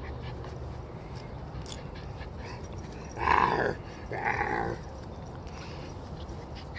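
King Charles spaniel puppy giving two short play growls about a second apart while it wrestles on its back.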